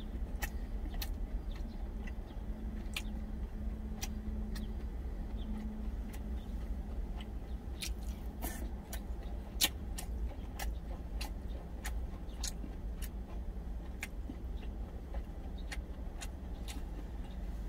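A person chewing smoked duck close to the microphone: irregular short mouth clicks and smacks, one sharper near the middle, over a steady low hum.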